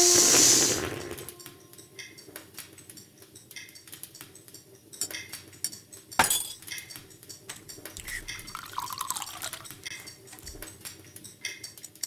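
Cartoon sound effects: a loud crash at the start that dies away over about a second, then quiet light clicks and clinks, a single sharp knock about six seconds in, and a short falling tone around nine seconds.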